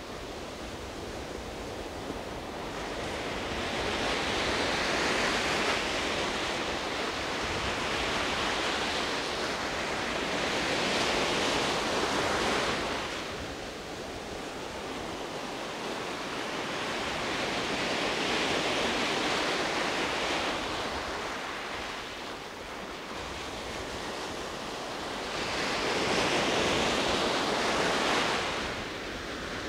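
Sea surf washing in the shallows: waves break and draw back in four slow swells of rushing noise, each rising for a few seconds and fading again.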